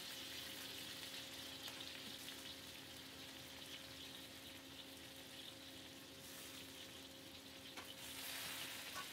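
Green chillies and freshly grated garlic sizzling steadily in hot oil in a large kadai, with a faint steady hum beneath.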